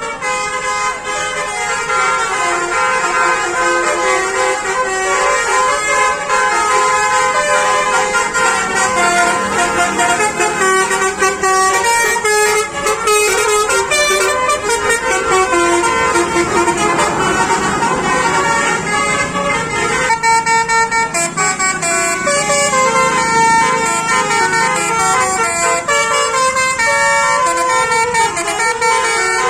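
Basuri telolet bus horn playing a tune: a loud, continuous run of held horn notes changing pitch in steps, several tones sounding together.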